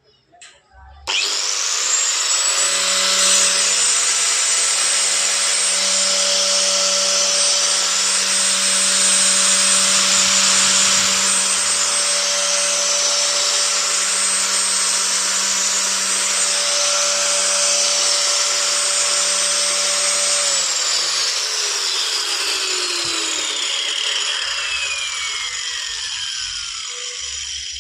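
Powertex PPT-AG-100G 1100 W 4-inch angle grinder switched on about a second in and running at a steady high whine. About twenty seconds in it is switched off and winds down, its pitch falling over several seconds.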